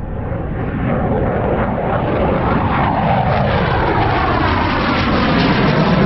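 Dassault Mirage F1's single SNECMA Atar turbojet growing steadily louder as the fighter approaches, with a whine that falls in pitch from about two to four seconds in.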